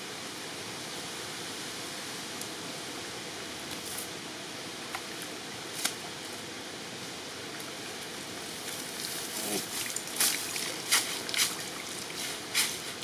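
Steady rush of shallow river water flowing. About nine seconds in, a run of sharp clicks and rattles starts, loudest near the end, as the cast net's chain sinkers are gathered up and the net is shaken out.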